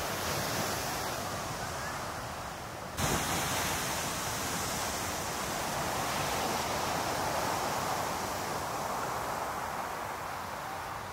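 Heavy ocean surf breaking and rushing, with wind on the microphone. The sound jumps abruptly about three seconds in.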